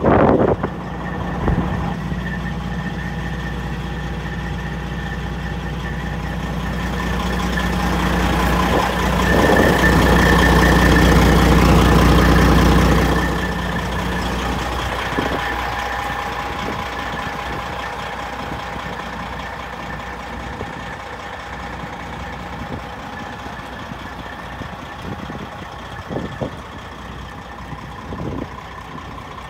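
Detroit Diesel engine of a 1993 White GMC Volvo WCA semi tractor idling at a steady speed, with a thin whine over the diesel rumble. It grows louder for several seconds in the middle, drops sharply about halfway through, and then fades slowly.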